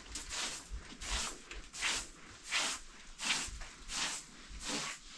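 Short straw hand broom sweeping a floor: about seven brisk strokes, one every 0.7 seconds or so.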